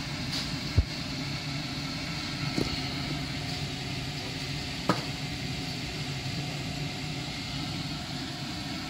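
Steady mechanical hum of a running kitchen appliance, with a few light knocks, the loudest about a second in.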